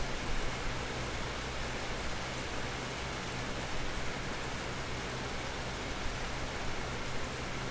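Steady rain falling, a continuous even hiss with scattered louder drops.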